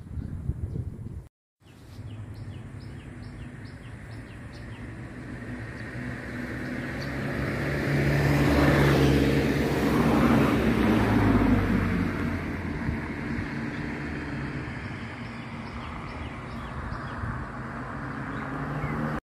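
A motor vehicle passes by on a road: engine and tyre noise swell to a peak about nine to twelve seconds in, then fade, over a steady low engine hum. Birds chirp in the first few seconds, and the sound drops out briefly just over a second in.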